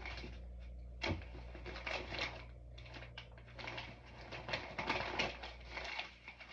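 Rustling and light clattering of packaged soap bars being rummaged through by hand in a fabric storage bin, with a sharper knock about a second in.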